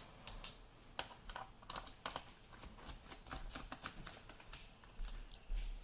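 Faint, irregular small clicks and taps of a screwdriver and screws working on a laptop's bottom cover as it is unscrewed to be taken off again.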